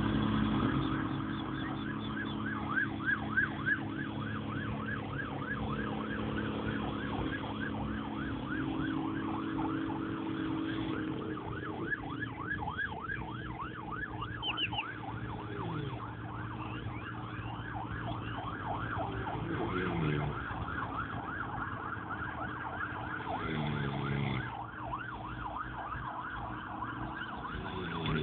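A siren-like electronic yelp: a fast rising-and-falling wail, about four cycles a second, that keeps going over a lower steady hum.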